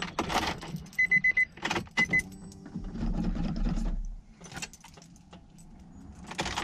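Keys jangling in the ignition of a Nissan 350Z while a high warning chime beeps several times. About three seconds in, a low hum runs for about a second: the fuel pump priming with the key turned to on.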